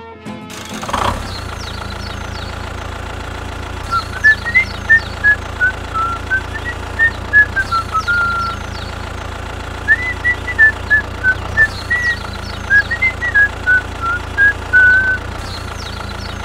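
Tractor engine sound, a steady low idling drone, with a whistled tune of short rising and falling notes over it from about four seconds in.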